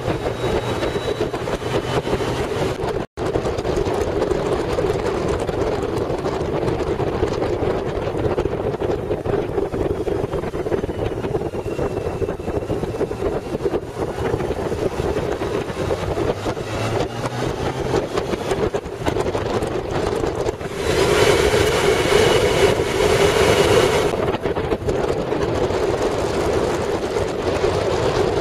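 Wind rushing over the microphone of a motorcycle riding at speed, over the steady drone of its engine and tyres. The sound drops out for an instant about three seconds in, and the wind rush swells louder for about three seconds late on.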